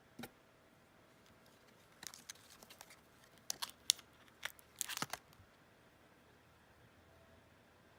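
Packaging being handled, crinkling and crackling: one click just after the start, then a run of sharp crackles and clicks from about two to five seconds in.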